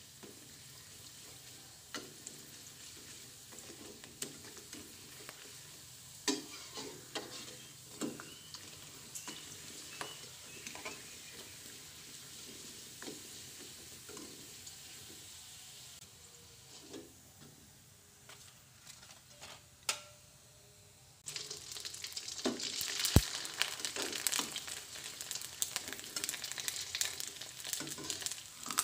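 A rice cracker (krupuk puli) frying in a wok: a soft sizzle with scattered taps and scrapes of a metal spatula pressing it against the pan. About three-quarters of the way through, the sizzle suddenly gets much louder and busier.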